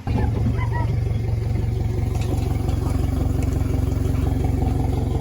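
Boat outboard motors running steadily during a freshwater flush, a low, even engine rumble with a fast regular pulse.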